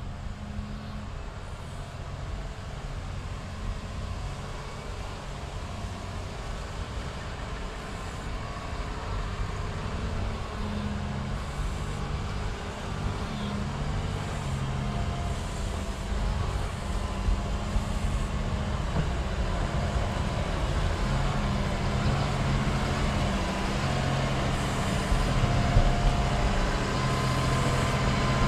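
Heavy diesel snow-removal machine running under load, its engine drone growing steadily louder as it comes closer.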